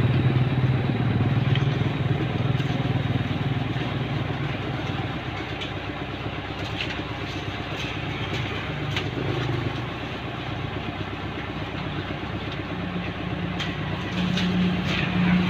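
Motorcycles running past on the road, a steady engine drone that fades in the middle and swells again near the end, with faint clatter.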